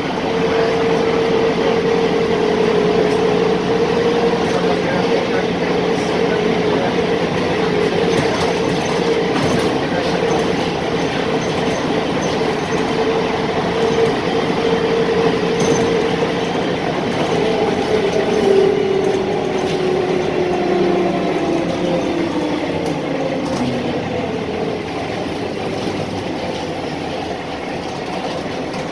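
Cabin noise of a moving Ikarus 260 city bus: the diesel engine and drivetrain run with a steady whine, which falls in pitch over several seconds a little past halfway as the bus slows.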